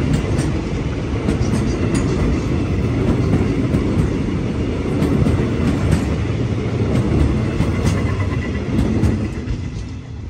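Steel wheels of a freight train's empty tank wagons rolling past on the rails: a steady low rumble with scattered sharp clicks. It fades away near the end as the last wagon passes.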